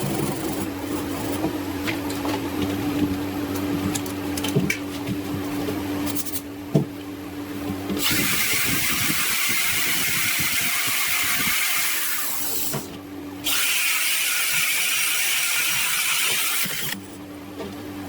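Power tools working on metal: a motor runs with a steady hum and some clicks, then stops, and a loud hiss follows in two long stretches with a brief break between them. The hum returns near the end.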